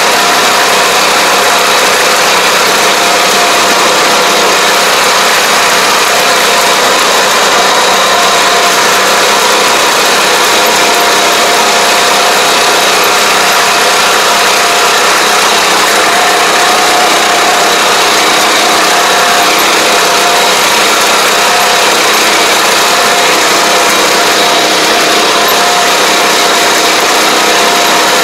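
Engine of a riding high-clearance crop sprayer running steadily as the machine drives through the crop, heard close up from the operator's seat.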